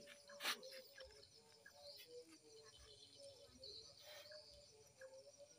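Near silence: faint night-time background, with a soft click about half a second in.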